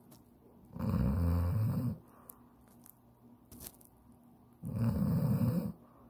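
An elderly man snoring in his sleep: two loud snores, each about a second long, about four seconds apart.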